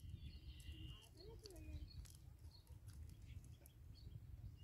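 Faint outdoor ambience: a low rumble, likely wind on the microphone, with faint distant bird calls and a few light ticks.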